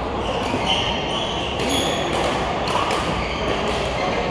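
Echoing ambience of a busy indoor badminton hall: a steady wash of distant voices and play from other courts, with a couple of brief high squeaks from court shoes on the floor.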